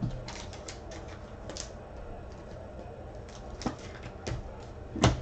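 Light, irregular clicks and taps of trading cards being handled and flipped through, with a few sharper taps, the loudest near the end.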